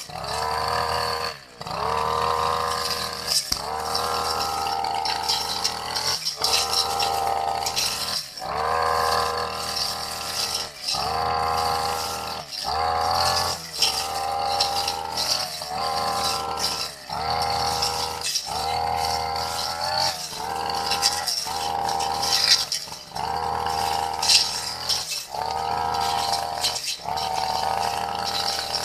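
Two-stroke brush cutter with a metal blade cutting long grass. The engine note rises and falls in a steady swing rhythm, dipping every couple of seconds as the blade bites into the grass, with a rattle of grass against the blade over it.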